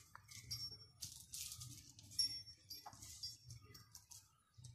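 Faint metallic clinks from the chain hung around a tethered Asian elephant's neck as it moves, with soft rustles between them.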